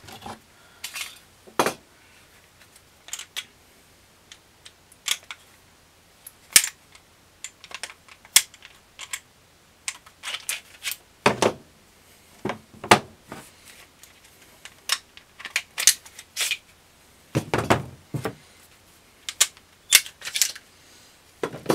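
Glock and S&W SD9VE pistols being field-stripped by hand: irregular metallic clicks and clacks of slides, springs and barrels, with a few heavier knocks as parts are set down on a wooden bench.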